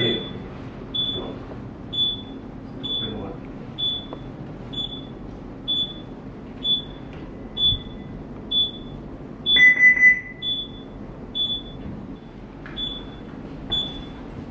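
Electronic alarm on a ship's bridge console beeping about once a second, with one longer, lower tone about ten seconds in.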